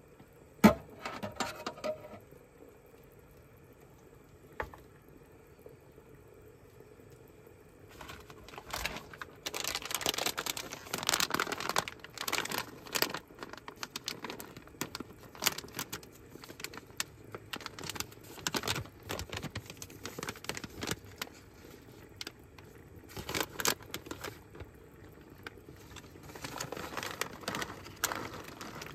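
A plastic snack packet of cashew nuts crinkled and torn open, in long bouts of rustling. There is one sharp knock about a second in.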